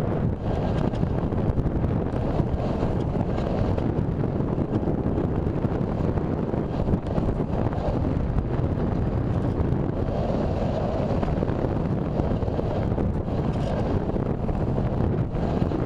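Wind rushing steadily over the microphone of a camera carried on an RC sailplane in gliding flight, with no motor tone heard.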